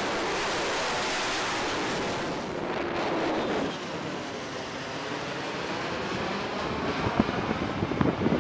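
Jet noise from an F-35B Lightning II flying past overhead: a steady rushing noise with a slight fall in pitch about three seconds in, and some crackling near the end.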